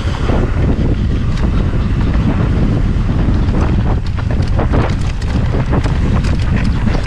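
Strong wind buffeting the camera microphone: a loud, steady low rumble, with scattered brief clicks and rattles through the middle.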